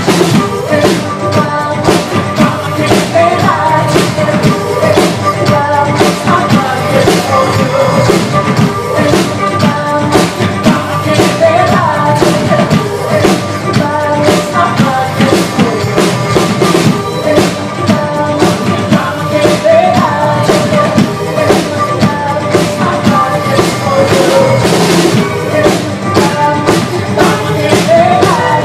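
Music with a drum kit keeping a steady beat under a melody.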